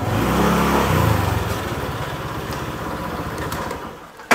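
Small motorbike engine revving up briefly, then running steadily and dying away near the end, with a sharp click at the very end.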